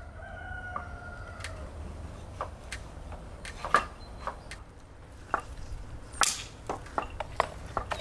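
A knife cutting beef leg meat on a wooden board: a dozen or more irregular knocks of the blade on the board, the loudest about halfway through.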